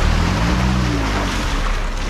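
Compact SUV driving slowly through a muddy puddle: engine running and water splashing and washing around the wheels, with background music.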